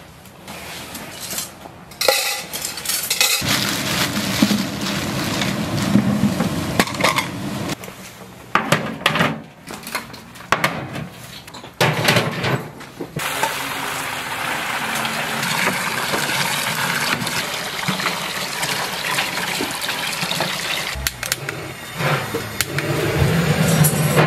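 Large aluminium stockpots and lids clanking and scraping as they are handled and set on drum stoves. From about halfway there is a steady rushing roar, which fits the LPG ring burners firing under the pots.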